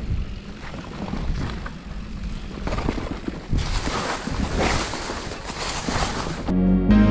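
Mountain bike rolling down a rough singletrack: steady tyre rumble with frequent knocks and rattles from the bike over rocks, and a louder rush of noise about halfway through. Music comes in near the end.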